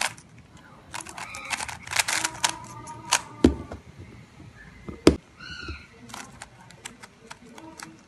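Plastic 3x3 speed cube turned by hand: quick clusters of sharp clacks as the layers snap round, with two heavier knocks about three and a half and five seconds in.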